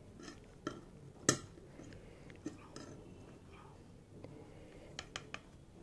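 Metal serving spoon clinking and tapping against the dishes as syrup-soaked gulab jamun donuts are lifted out, a few sharp clinks with the loudest about a second in and a quick run of three near the end.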